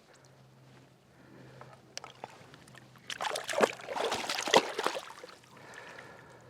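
River water splashing and sloshing, loudest for about two seconds in the middle.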